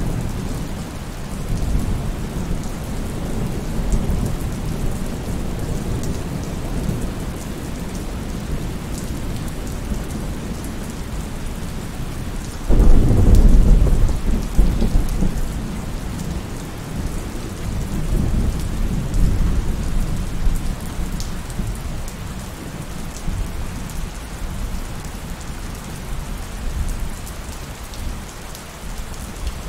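Heavy rain falling steadily with rolling thunder rumbling underneath. About halfway through, a loud thunderclap breaks suddenly and rumbles away over several seconds.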